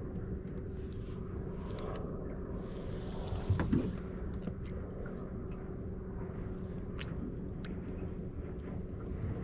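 Steady low hum of the small boat's motor, with scattered light ticks and a brief louder knock about three and a half seconds in.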